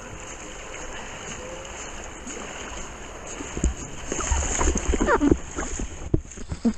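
Water rushing past a wakeboard and a board-mounted camera as it glides in. About halfway through it turns louder and choppier, with splashing and gurgling as the board slows and sinks into shallow water.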